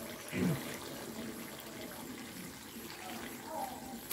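Faint sloshing and trickling of a thin, dark kalu dodol mixture in a large wok as it is worked by hand.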